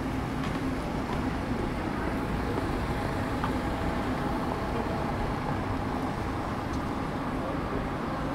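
Steady rumble of city street traffic, with a faint engine hum under it.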